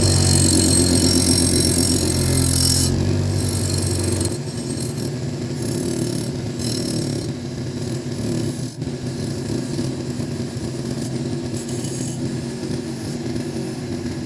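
An electric power tool running steadily with a scraping sound, as in work on the metal of a rusty cleaver. The tool is loudest for the first four or so seconds, then drops to a lower, steadier running sound.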